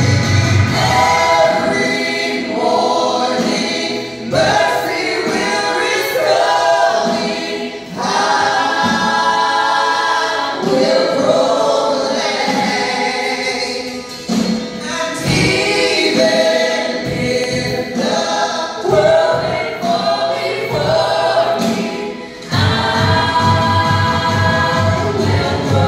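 Contemporary worship band performing a gospel-style song, with lead singers carrying the melody. The bass drops out about a second in, leaving the voices over light accompaniment, and the full band with bass comes back in a few seconds before the end.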